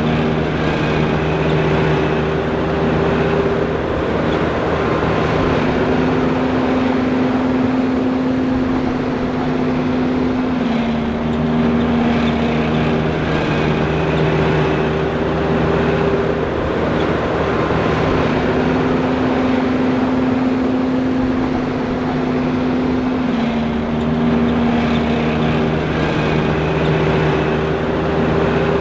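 John Deere 5820 self-propelled forage harvester running steadily: a loud machine drone with several hum tones that step up and down in pitch, repeating in a cycle of about twelve seconds.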